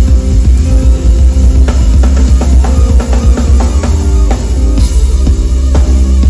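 Live jazz band playing at full volume: drum kit with steady hits over a deep, heavy bass line and held keyboard chords.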